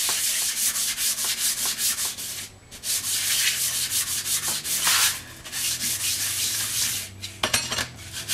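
Motorcycle clutch plate being hand-sanded on emery paper over a flat granite slab, a steady scratchy back-and-forth scrubbing that stops briefly twice. The scrubbing takes the glaze off the plate so a slipping clutch will grip again. A few sharp clicks come near the end.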